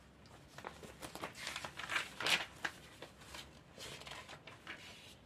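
Glossy pages of an Avon catalog being handled and turned: a run of paper rustles and crackles, loudest about two seconds in.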